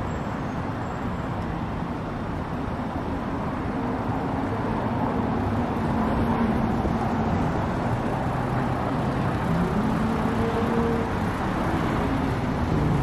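BMW 5 Series sedan's engine running as the car creeps forward out of a glass-doored bay, over a steady rumble of background noise. It grows louder from a few seconds in as the car comes out.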